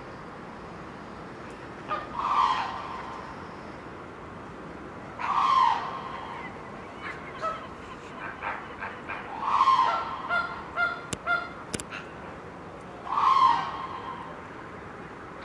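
Black crowned crane honking: four loud calls spaced a few seconds apart, with a run of short, quieter notes between the later calls.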